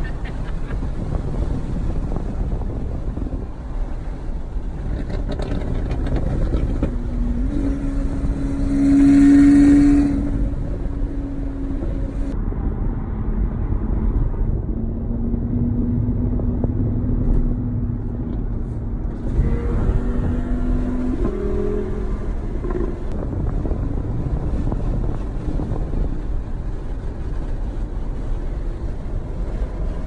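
Corvette V8 engine and road noise heard from inside the cabin while cruising at highway speed. A steady engine tone comes up about seven seconds in and swells loudest around nine seconds, then settles into a lower steady drone for several seconds.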